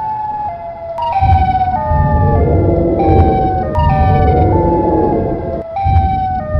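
Two-tone hi-lo siren sound effect, alternating between a higher and a lower note about twice a second. A deep rumble joins it about a second in and drops out briefly near the end.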